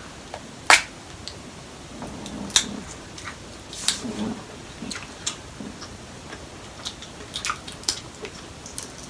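Eating seafood: irregular sharp clicks and cracks of crab leg shells being broken open by hand, with soft chewing and mouth sounds between them.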